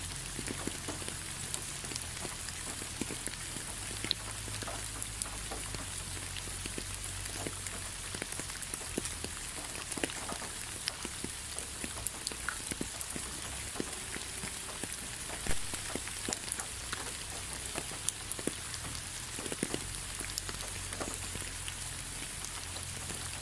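Steady rain: an even hiss of falling rain with many separate drops ticking close by, one a little louder about fifteen seconds in, over a faint low hum.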